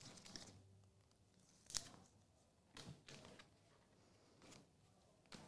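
Near silence, with a few faint clicks and rustles of trading cards and plastic card holders being handled on a table. The sharpest click comes a little under two seconds in.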